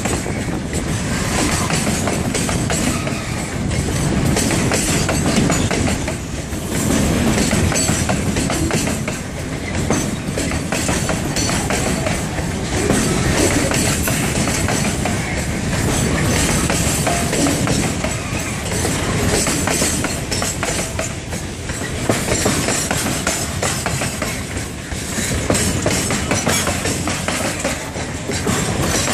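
Freight wagons rolling past close by: steel wheels rumbling and clacking over the rail joints, the noise rising and falling every few seconds.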